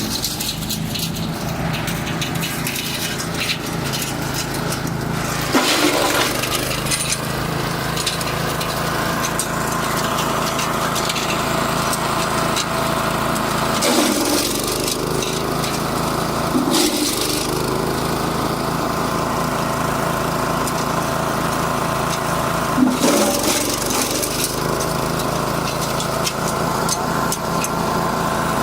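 Wood chipper driven by a 6.5 hp petrol engine running steadily. About four times, a burst of cracking and splintering wood breaks in as material is chipped, and the engine note dips briefly under the load.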